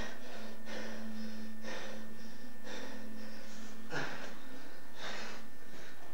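Heavy, laboured breathing of two grapplers straining in a pin, a sharp breath about once a second.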